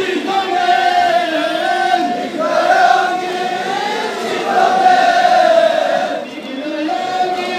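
Crowd of men chanting a mourning lament in unison, in long held phrases of about two seconds each, with a short break about six seconds in.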